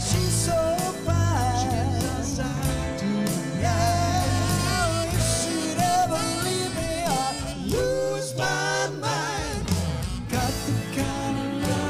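A live soul band playing an instrumental break: a lead melody with a wavering vibrato carries over bass guitar and drums, and climbs quickly about two-thirds of the way through.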